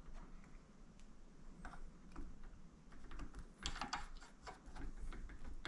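Faint, scattered small metallic clicks and ticks from the adjustment ring and jam nut at the handle end of a Pittsburgh click-type torque wrench being turned by hand to fine-tune its calibration. The ticks come thicker in the second half.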